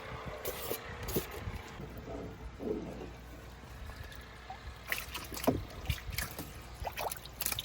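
Water splashing and dripping in short bursts as live creek chubs are handled and dropped into a small bait bucket, over a low steady hum.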